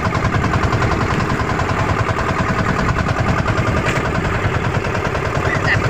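Twin engines of a small outrigger fishing boat running steadily underway, a loud, fast, evenly pulsing drone. The owner says the engines are run down for lack of maintenance.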